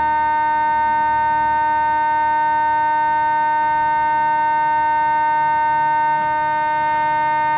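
KST X10 Mini digital wing servo, powered through its programming tool, humming steadily while it holds the control surface: one unchanging pitched buzz with several overtones.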